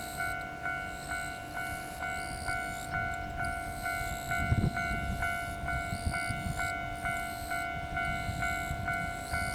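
Railway level crossing warning bell ringing steadily at about two dings a second. A low rumble swells around the middle.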